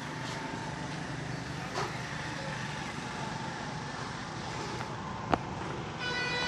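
Steady street traffic noise, with one sharp click late on and a vehicle horn starting to sound just before the end.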